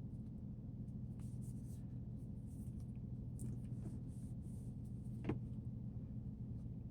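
Faint rubbing and handling sounds on a phone's freshly fitted glass screen protector, over a steady low hum, with a single light click about five seconds in.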